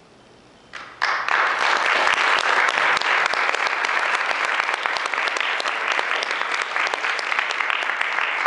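Audience applauding, starting abruptly about a second in after a brief quiet and continuing as dense, steady clapping.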